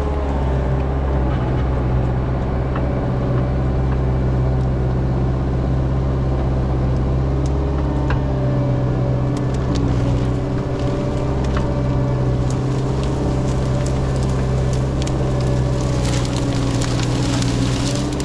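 Caterpillar 306 mini excavator's diesel engine running steadily and loud, with scattered sharp cracks and clicks that come thickest near the end.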